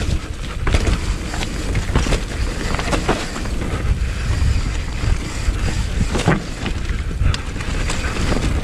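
Wind roaring on a helmet chin-mounted action camera during a fast mountain bike descent. The 29er enduro bike's tyres rumble over rough trail, with sharp knocks and rattles from the bike several times as it hits bumps.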